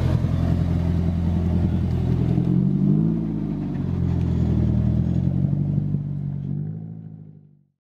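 Nissan 240SX's engine and exhaust as the car drives past and away: a steady low engine note that rises briefly about three seconds in, then fades away near the end as the car recedes.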